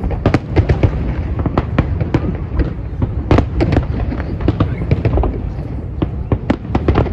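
Fireworks display: a dense run of shell bursts and crackling reports, many sharp bangs close together over a continuous low rumble.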